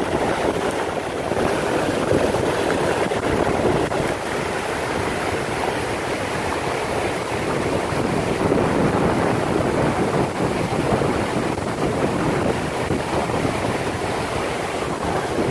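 Strong wind, about 20 miles an hour, blowing across the microphone in a steady, loud rush.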